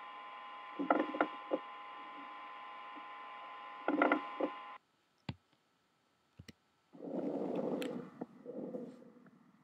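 Recorded lung sounds from a chest recording: short clusters of crackling clicks over a steady hum, then after a brief silence a loud, noisy breath of about a second and a half near the end.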